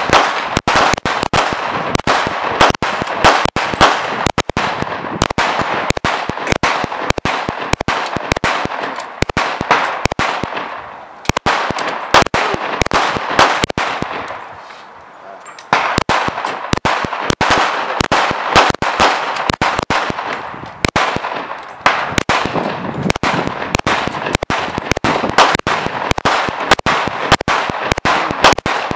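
Rapid handgun fire from several shooters at once, dozens of overlapping shots in quick strings, with a lull of about two seconds around the middle.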